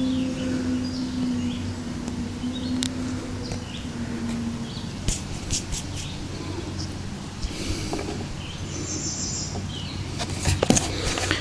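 Outdoor background with small birds chirping and a steady low hum that fades out about halfway through, then a few light clicks and rustles near the end. No firecracker goes off.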